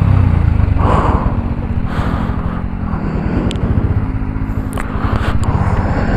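Motorcycle engine running on off-road track, a steady rapid low pulsing, with a couple of short sharp clicks a little past the middle.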